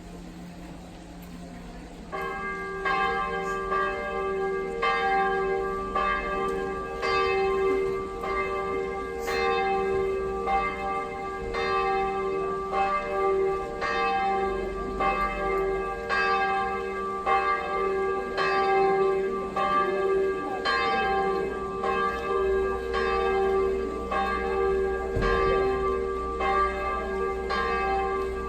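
Church bells start ringing about two seconds in, then keep up a steady run of strokes whose tones ring on and overlap one another.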